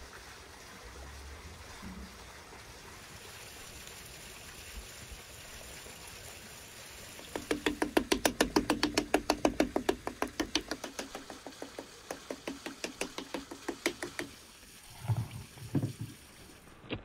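A fork pricking and tapping quickly over sauce-covered pizza dough, about seven sharp taps a second for some seven seconds, after a stretch of faint steady background noise. Two dull thumps follow near the end.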